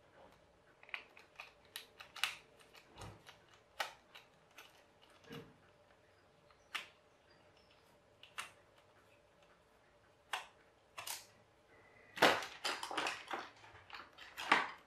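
Screwdriver undoing small screws in a Babyliss hair dryer's plastic handle: irregular clicks and scrapes of the tip on the screws and of hands moving the plastic parts, with a denser run of clicking and rattling about twelve seconds in.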